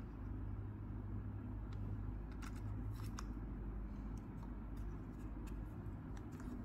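Faint handling sounds: a few small clicks and scrapes as a white plastic knob is pushed onto the shaft of a water heater's temperature-control variable resistor on its circuit board, clustered a couple of seconds in, over a low steady hum.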